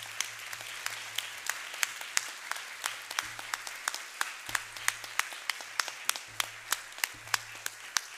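Audience applauding: a steady patter of many hands, with a regular run of louder, sharper claps from someone close by.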